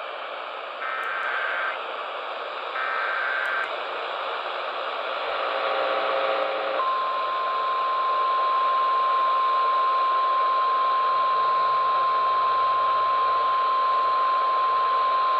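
NOAA Weather Radio alert heard through a radio receiver with steady static hiss: three short data bursts of the digital alert header, then, after a brief buzz, the steady single-pitch warning alarm tone for about nine seconds, the signal that a warning, here a tornado warning, is about to be read.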